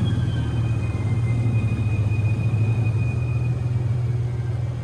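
Tour boat's engine running with a steady, loud low drone.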